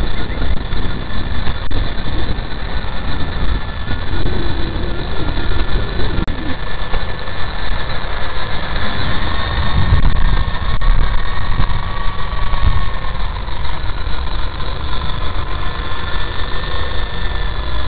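WLtoys V913 RC helicopter in flight: a steady whine from its electric motor and rotor, its pitch drifting slightly with the throttle, over the low rumble of wind on the microphone.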